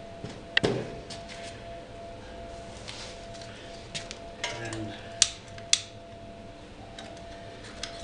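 Sharp metal clinks and knocks, a handful spread over several seconds with the two sharpest about five seconds in, from handling the steel gasifier and its fuel canister while lighting it. A faint steady tone runs underneath.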